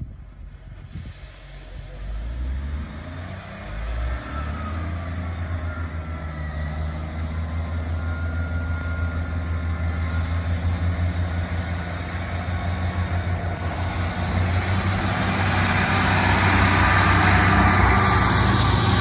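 Diesel train approaching, its low engine note growing steadily louder, with faint high squeals from the wheels or brakes partway through.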